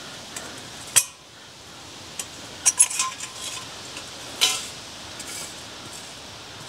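Small metal hobo stove parts clinking and knocking as they are handled and set down: a sharp knock about a second in, a quick cluster of clinks near the middle with a short metallic ring, and one more clink a little later. The stove has burned out and is cold.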